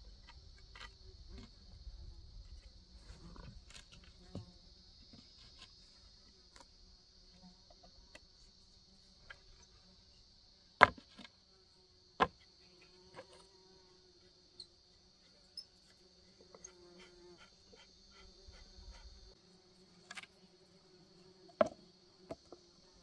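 Steady high buzzing of insects, with scattered light knocks and clicks of wooden boards being handled and fitted together into a mould. Two sharp wooden knocks come a second and a half apart partway through, and another comes near the end.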